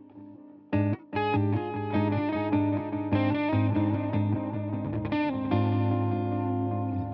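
Background music led by a distorted electric guitar; it dips almost to nothing at first, then comes back with sharp chords just under a second in and plays on.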